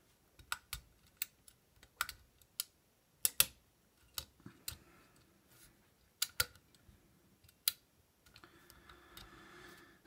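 Lock pick and tension wrench working the pins of an old Eagle pin-tumbler mailbox lock: irregular sharp metallic clicks and ticks, some in quick pairs, as the pick reaches through to the back pin.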